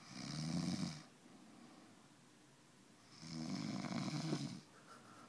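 A man snoring: two long snores, the first about a second long and the second about a second and a half, some three seconds apart, with quiet breathing between.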